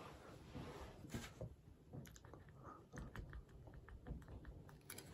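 Faint clicks and light rubbing of hard plastic model airliner parts being handled and fitted together, with scattered small clicks throughout.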